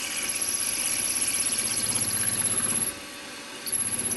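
A mill-drill running a 3.8 mm drill through a brass carburettor valve: a steady high motor whine with a pulsing level. The whine and level drop away for under a second about three seconds in, then come back.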